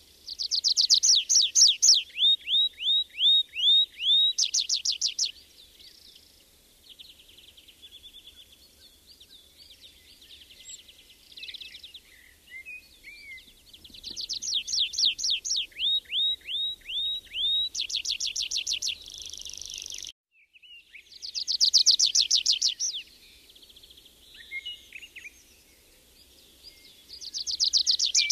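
A songbird singing loud, repeated song phrases, each a fast high trill, then a run of clear down-slurred notes, then another fast trill. Quieter warbling fills the gaps between phrases. The sound cuts out for a moment about two-thirds of the way through.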